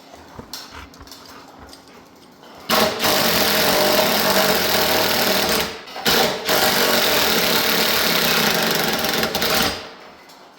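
A power impact tool hammering rapidly in two bursts of about three seconds each, with a short break between, working on the ATC70's rusted, stuck rear axle hub to break it free.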